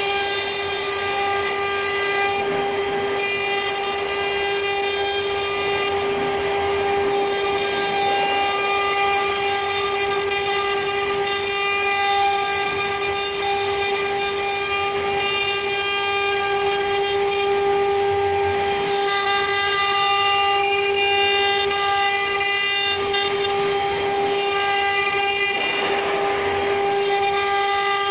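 1530 CNC wood router's spindle running with a steady high whine while its bit engraves letters into a wood board, with the hiss of the cut beneath it.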